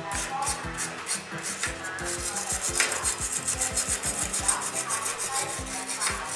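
Hand wire brush scrubbing a stick-welded corner bead on steel in quick, repeated back-and-forth strokes, cleaning the slag off the weld.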